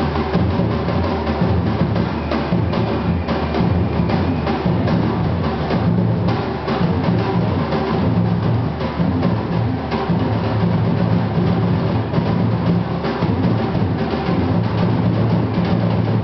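Batucada samba percussion ensemble playing a loud, dense, steady drum rhythm, with heavy bass drums under rapid higher drum strokes.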